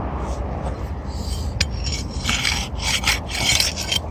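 Steel pry bar scraping and rasping against gritty asphalt shingles in a run of irregular strokes, strongest in the second half, as it is worked under a shingle to pop a roofing nail loose. A steady low rumble runs underneath.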